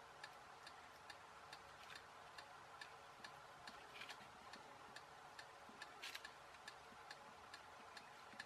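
Faint, quick, even ticking over near-silent room tone, with a couple of slightly louder clicks as a resistor's wire leads are pushed into a small printed circuit board.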